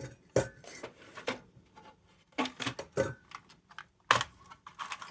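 Rummaging through small spare parts by hand: a string of light clicks and clatters, about a dozen irregular knocks, a few with a short metallic ring.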